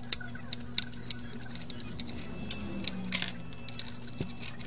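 Scattered small clicks and taps of hands handling parts and connectors on an opened PS5's circuit board, with one louder clack about three seconds in, over a faint steady low hum.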